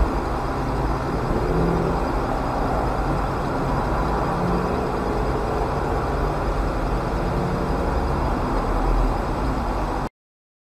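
Outdoor car park noise picked up by a dashcam microphone inside a parked car: a steady rush of distant traffic with a car driving slowly past. The sound cuts off suddenly near the end.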